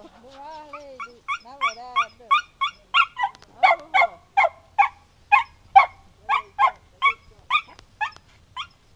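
A dog whining with a pitch that bends up and down for about two seconds, then barking in a rapid string of short, sharp barks, about three a second, that stops just before the end.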